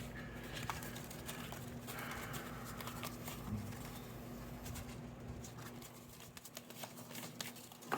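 Faint handling of cardstock pieces: a few light taps and soft rustles as a glued piece is pressed down, over a steady low hum.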